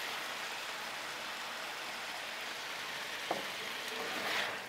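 Teriyaki chicken and broccoli sizzling steadily on a hot flat-top griddle, with one light tick a little after three seconds in.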